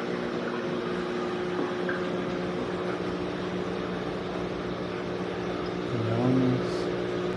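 Steady electric hum of aquarium pumps and filters, holding several fixed low pitches.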